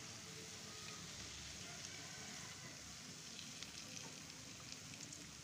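Gram-flour (besan) pakoras deep-frying in hot oil in a steel pan: a steady sizzle, with small crackles from about three seconds in.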